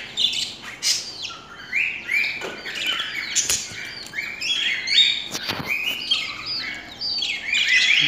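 A flock of caged budgerigars chirping, many short high chirps overlapping without a break, with a few sharp clicks among them.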